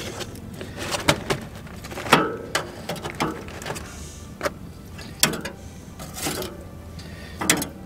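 Metal tongs clicking and scraping on a smoker's grate and crinkling aluminium foil while a rack of smoked spare ribs is lifted out of the foil onto the grate: a string of irregular clicks and short rustles.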